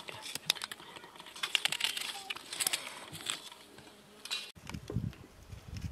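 A knife cutting through ripe tomatoes held in the hand, a quick run of crisp cuts and clicks as the pieces fall into a metal bowl. About four and a half seconds in the cutting stops and a low rumble follows in short bursts.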